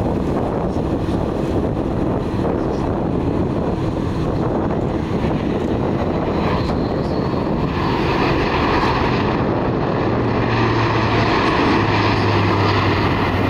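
Airbus A400M Atlas's four TP400 turboprop engines and eight-bladed propellers running in a low display fly-past, a steady drone that swells about eight seconds in as the aircraft comes closest, with a low propeller hum underneath.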